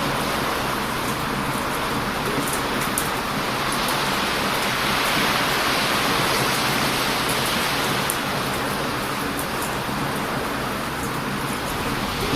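Heavy ocean surf breaking on a beach: a continuous loud rush that swells about four seconds in and again near the end. Faint crackles from a wood bonfire tick over it now and then.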